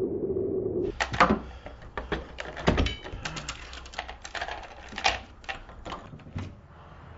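A front door's locks worked by hand: a quick run of metallic clicks and rattles from the bolt and the brass security chain, with a few louder knocks, after a steady low hum in the first second.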